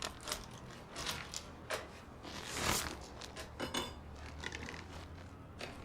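Door locks being worked and fastened: a string of small metallic clicks and knocks, with a longer scrape about two and a half seconds in.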